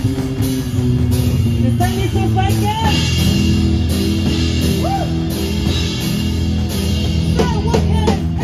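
Rock band playing on drum kit, electric bass and electric guitar, the bass holding long low notes.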